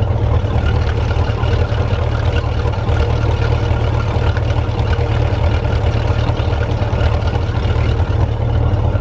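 MerCruiser sterndrive boat engine idling steadily out of the water while it warms up so the thermostat opens, with its cooling water fed from a pool by a sump pump.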